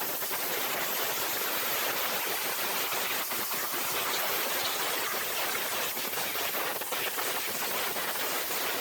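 Steady, even hiss like static or rushing noise, with no tone or rhythm in it.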